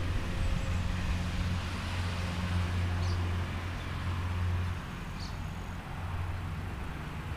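Outdoor park ambience: a steady low rumble that eases off about five seconds in, with two brief high chirps from a small bird.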